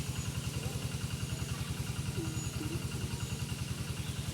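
A small engine running steadily at idle with a fast, even pulse.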